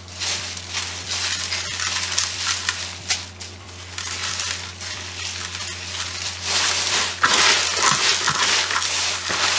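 Hands rustling and crackling through a basin of fresh mustard greens, first scattering coarse sea salt over the leaves, then tossing and mixing them to wilt them. The rustling grows louder about six and a half seconds in, when the mixing starts.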